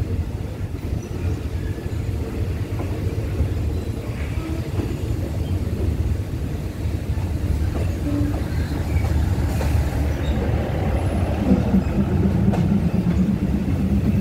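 Commuter train rolling slowly through a station yard: a steady low rumble of engine and wheels on the track, growing louder with a stronger hum over the last few seconds.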